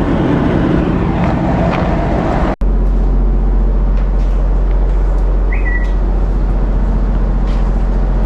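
A steady low mechanical drone of a running motor, with a short break about two and a half seconds in and a brief high chirp a little past the middle.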